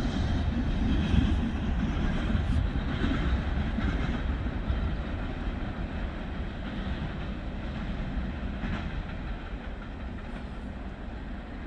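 Norfolk Southern freight train rolling along the rails: a steady low rumble from the cars that slowly fades.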